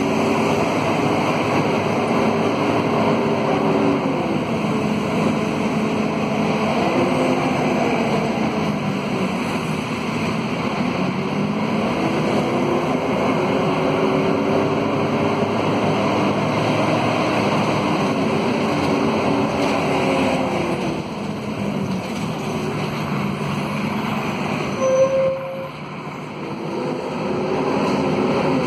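Inside a Scania K230UB city bus on the move: its Scania DC9 diesel engine and ZF Ecomat automatic gearbox repeatedly climb and drop in pitch through the gears, with the radiator cooling fan howling. A short beep near the end.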